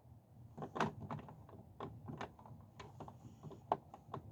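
Scattered light knocks and clicks, about a dozen, irregularly spaced over a few seconds.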